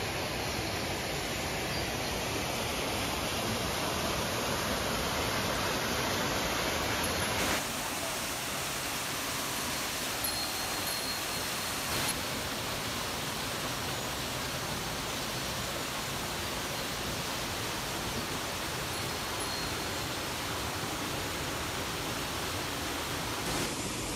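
Steady rush of water from a rocky mountain river, with an abrupt shift in its tone about seven seconds in.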